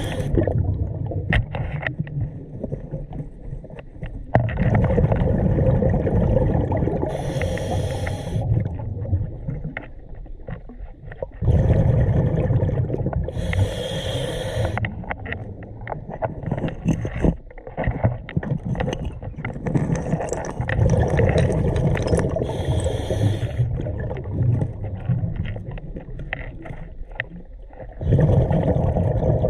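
Scuba diver breathing through a regulator underwater: slow breath cycles about every 8 seconds, each a spell of deep rumbling exhaled bubbles with a short high hiss.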